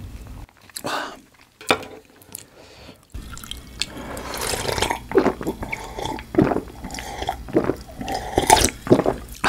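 Close-miked mouth sounds of someone drinking from a glass: a few small clicks, then from about three seconds in a run of gulps and swallows with liquid sloshing.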